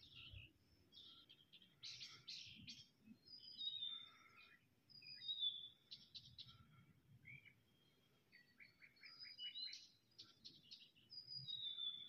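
Faint songbird singing: short high whistles, several sliding down in pitch, with a quick run of repeated trilled notes a few seconds before the end.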